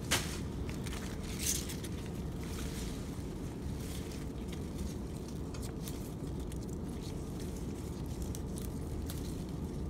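Pepper plant leaves and stems rustling and crackling as a hand handles them close to the microphone, over a steady low rumble.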